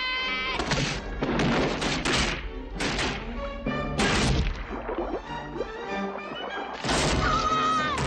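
Tense orchestral film score with several loud crashing hits, about five of them.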